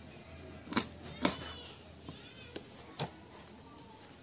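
A meat cleaver chopping raw frog on a round wooden chopping board: three sharp chops, two within about half a second early on and a third about three seconds in, with lighter knocks between.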